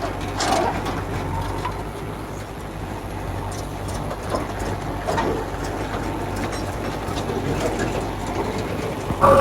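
Heavy machine's diesel engine running steadily, with scattered faint knocks and clanks. Near the end, a louder sound with steady pitched tones starts.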